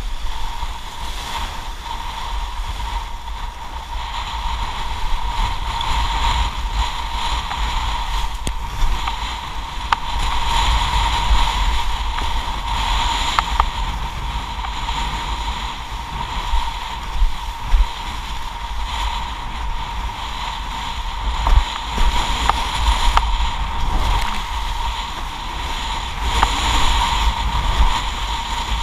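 Windsurf board planing fast over choppy sea in strong wind: heavy wind buffeting on the camera microphone over the rush of water and spray, with a steady hum and occasional sharp knocks as the board slaps the chop.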